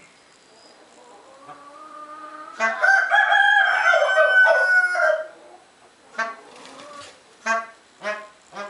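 A rooster crowing: one long call starting about two and a half seconds in and held for about two and a half seconds, then several short, rapidly pulsed calls near the end.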